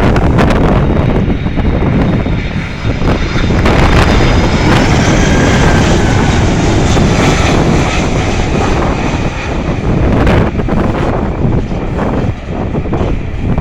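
Boeing 767 freighter's jet engines passing on landing, a steady rush with a faint high whine that slides in pitch about halfway through. Heavy wind buffets the microphone throughout.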